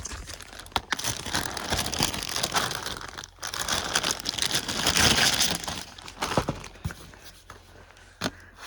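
Dried filefish jerky, just grilled and crisp, being torn apart and crinkled by hand: a dense run of crackling, tearing noise for about six seconds, then a few scattered crackles.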